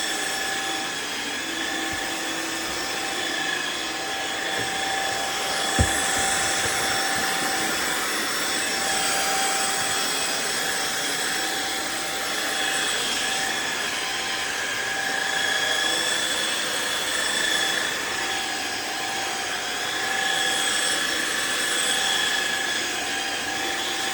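Riccar R70 floor washer running, its suction motor and brush rolls giving a steady whine over a rushing noise that swells and dips slightly as it is pushed over the floor. A single sharp knock about six seconds in.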